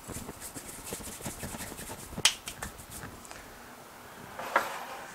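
Rapid light crackling and clicking of kitchen items being handled, with a sharper click a little over two seconds in and another near the end.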